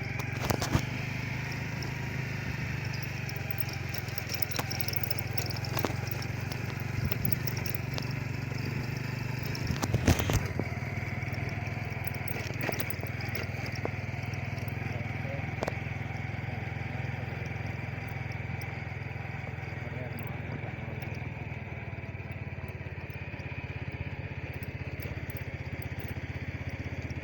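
Motorcycle engine running steadily on the move, with a few sharp knocks and rattles, the loudest about ten seconds in.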